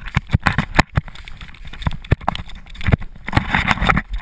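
A GoPro camera in its housing being thrown and caught: wind rushing over its microphone as it tumbles, broken by many rapid, irregular knocks and clatters as it is handled.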